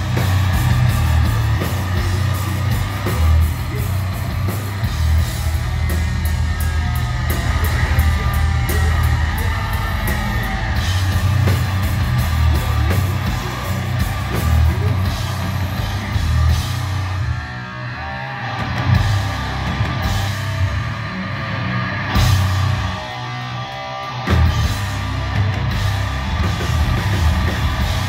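Death metal band playing live and loud: distorted guitars, bass and pounding drums with harsh yelled vocals. The cymbals drop out briefly twice in the second half.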